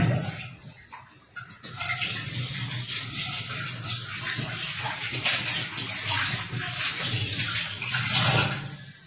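A knock at the start, then water running in a steady hissing rush for about seven seconds that stops near the end.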